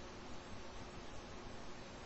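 Steady background hiss of the recording microphone, with a faint low hum underneath.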